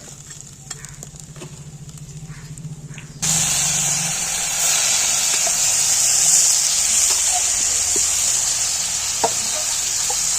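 Seafood frying in hot oil: a loud sizzle starts suddenly about three seconds in and keeps going with occasional small spatter pops. Before that there is only a low steady hum and a few light clicks.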